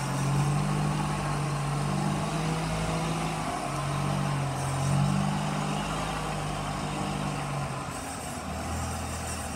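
Diesel engine of a Sandvik DT820 underground drilling jumbo running as the rig drives past and away. It makes a steady low drone that shifts pitch a few times and drops lower and a little quieter near the end as the machine pulls away.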